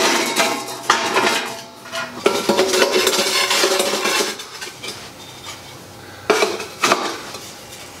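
Firebrick lining blocks scraping and clattering against the steel shell of a homemade propane forge as they are pushed and fitted into place, with two sharp knocks about six and seven seconds in.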